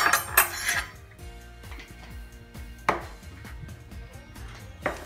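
A metal utensil scraping butter out of a plastic tub and knocking against the tub and bowl: a scrape in the first second, then two sharp knocks about three and five seconds in. Soft background music plays underneath.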